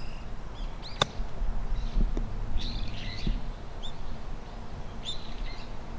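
A single sharp click of a golf club striking the ball on a short chip shot about a second in, with birds chirping throughout.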